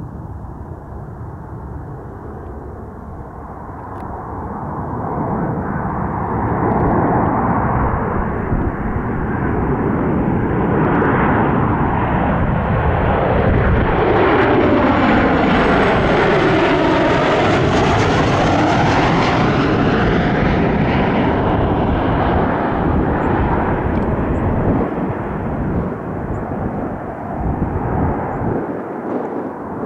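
A large aircraft's engines flying low past the spotter. The noise builds over several seconds, peaks near the middle with a sweeping, swirling whoosh, and slowly fades away.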